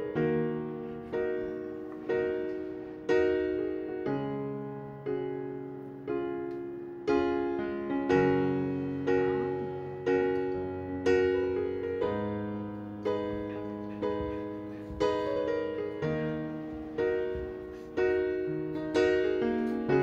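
Background piano music: a chord or note struck about once a second, each left to ring and fade.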